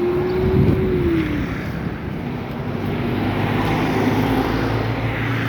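A vehicle engine running on the move, its pitch dropping about a second in and then holding steady, over a haze of road noise.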